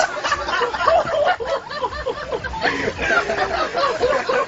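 Several people laughing and snickering, with bits of voices mixed in.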